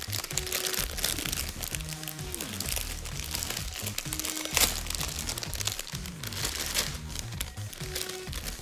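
A clear plastic bag of wrapped sweets crinkling as it is handled, with a louder crackle about halfway through, over background music.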